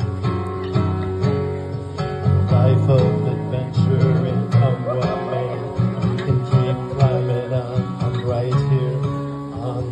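Live acoustic guitar playing strummed and picked chords as the accompaniment of a song.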